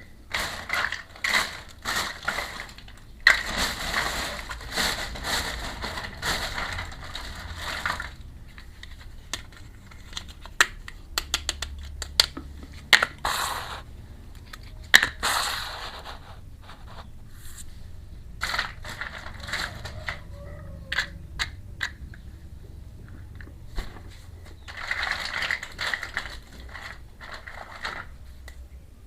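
Crinkling, crackling packaging in long stretches, with sharp clicks and taps of small toy pieces being handled in between, from unboxing a miniature toy kitchen set.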